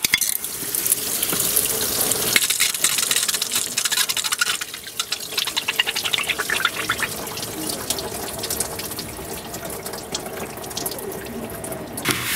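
Engine coolant pouring and splashing out of the opened thermostat housing of an LS V8 into a drain bucket below, a steady gushing with fine spattering.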